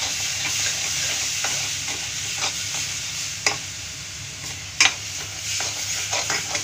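Onion-tomato masala sizzling as it fries dry in a metal kadhai over a gas flame, with a spatula stirring and scraping it. The spatula knocks against the pan every second or so, and the sharpest knock comes nearly five seconds in.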